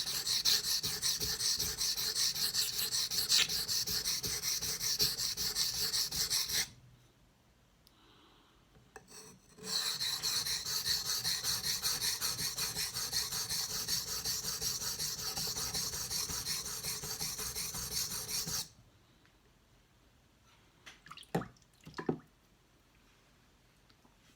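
Steel knife blade stroked rapidly back and forth on a wet King whetstone with a water slurry: a steady scraping rasp. It stops for about three seconds a quarter of the way in, resumes, then stops for good about three quarters of the way in, followed by two light knocks.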